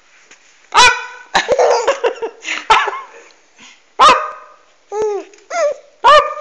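A baby laughing in short, loud, high-pitched squeals, about seven of them, each rising and falling in pitch.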